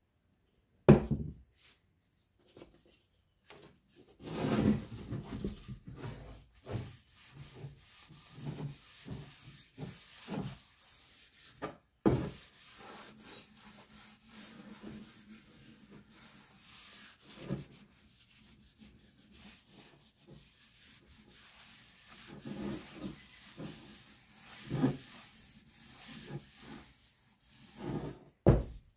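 Paper towel rubbing linseed oil into a new wooden axe handle: irregular wiping strokes along the wood. A few sharp knocks stand out, the loudest about a second in, another about halfway through and one near the end.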